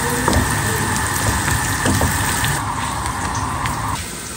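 Water running steadily from a tap into a sink, shut off about four seconds in.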